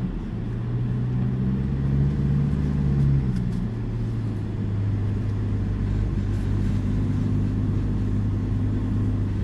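Car engine and tyre noise heard from inside the cabin while driving uphill on a road: a steady low hum. The engine note drops slightly about three seconds in.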